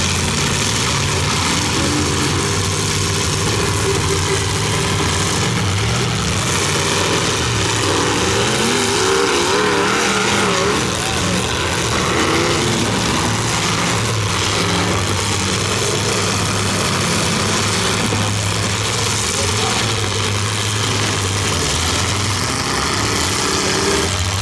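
Engines of big demolition derby cars running and revving, a steady low drone with pitches swinging up and down around the middle.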